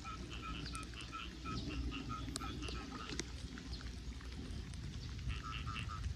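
Frogs calling in a run of short, evenly repeated notes, a few each second, over a low steady rumble.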